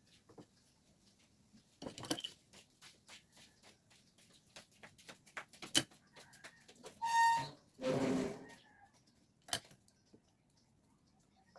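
Small metal carburetor parts clicking and clinking as they are handled during reassembly, with two short, loud bursts of hissing noise about seven and eight seconds in.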